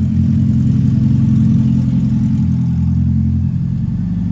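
Car engine running steadily at low revs, an even low drone.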